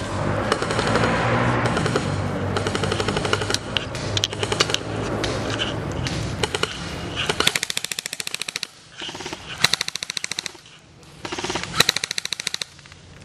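Airsoft rifles firing rapid full-auto strings of shots, with three separate bursts with short pauses between them in the second half.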